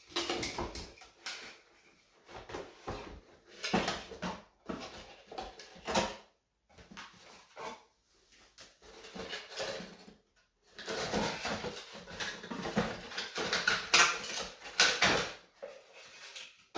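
Rustling and light clicks and knocks of a thin LED wafer downlight and its packaging being handled, in irregular spurts with short pauses.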